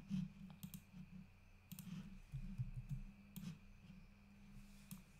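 A few sharp, isolated clicks from a computer mouse or keyboard, spread out over a steady low background hum.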